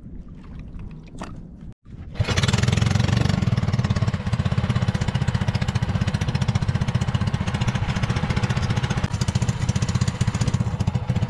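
Small engine of an outrigger fishing boat running steadily at a fast, even putter. It starts about two seconds in, after a short quieter stretch.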